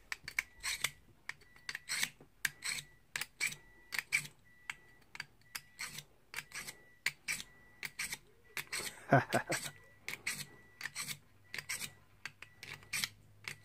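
A steel knife blade scraping through the V-notch of a Lansky pocket sharpener in quick, repeated draws, about two to three strokes a second, with a few louder strokes about nine seconds in.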